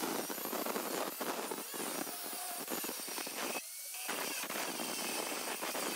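Angle grinder's abrasive disc grinding into sheet steel, a steady harsh whine and hiss. The disc comes off the metal for about half a second just past halfway, then bites in again.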